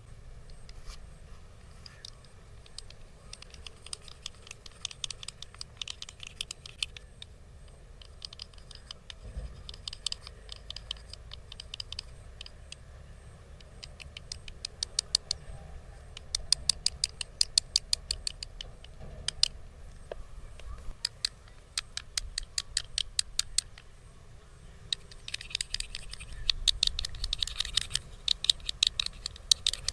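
Bursts of rapid, light tapping and scratching from a head massage, several sharp taps a second. The bursts grow denser over the second half.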